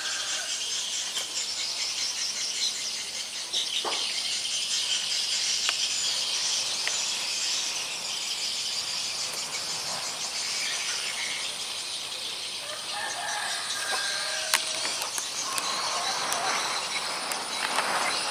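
Outdoor ambience: a steady high hiss of insects with birds calling, including a few short pitched calls about two-thirds of the way through.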